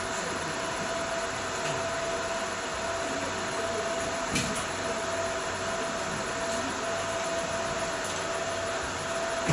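CO2 laser marking machine running steadily with a whirring hum and a steady high tone while it marks an MDF board, with a single click about four and a half seconds in.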